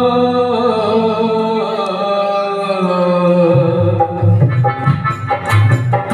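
Live male vocal through a microphone and PA, holding one long wavering note that slowly falls, with a keyboard underneath. About four seconds in, a hand drum starts playing a rhythm and the keyboard picks up a melody.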